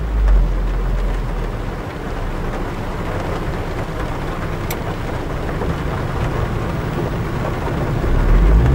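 The 2016 Zotye T600 Turbo's turbocharged four-cylinder engine, parked and heard from inside the cabin. The revs fall back to idle over the first couple of seconds, the engine idles steadily, and it is revved up again near the end.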